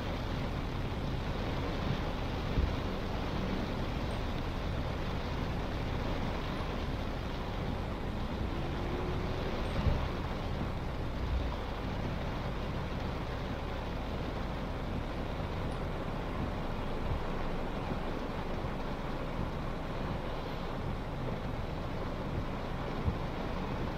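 Car driving through heavy rain: a steady hiss of rain and wet-road tyre noise, with a few dull thumps.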